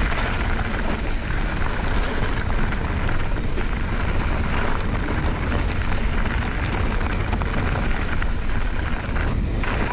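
Mountain bike tyres rolling fast over a loose gravel track, a steady noise of stones under the tyres, with wind buffeting the camera microphone.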